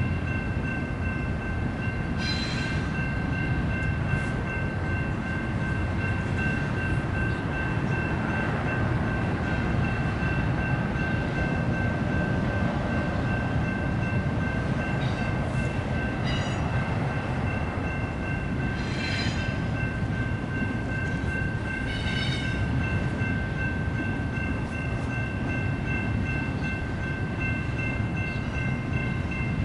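Intermodal freight train of container cars rolling past, heard as a steady low rumble with a thin steady high ringing over it. A few sharp clanks break through now and then, three of them fairly close together past the middle.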